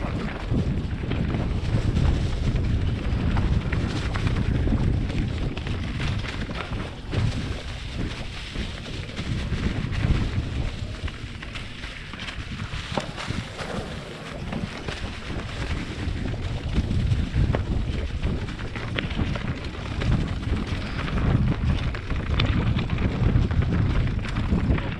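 Wind buffeting the microphone of a mountain biker riding fast downhill, a steady rumble, with tyres rolling over loose stones and dirt and many short clicks and clatters from the bike over rocks.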